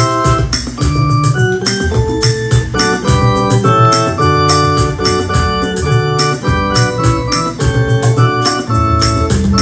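Electronic keyboard played with both hands: full chords with a melody above, the chords changing every second or so and the notes struck crisply.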